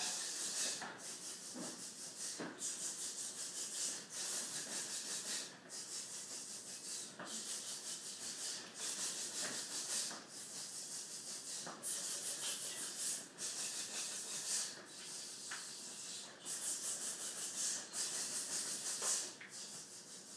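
A school band performing a rhythm exercise without instruments: a repeated shushing, hiss-like sound from many people together. Each stroke lasts about a second, a new one comes roughly every second and a half with a short break before it, and a few faint clicks fall among them.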